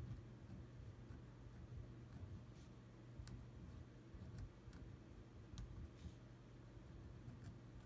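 Faint scratching and light ticks of a pen tip on paper during hand lettering, over a steady low hum.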